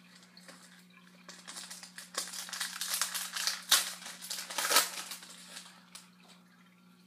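Crinkling and rustling of a hockey card pack's wrapper being torn open and handled. It starts about a second in, peaks twice, and dies down near the end.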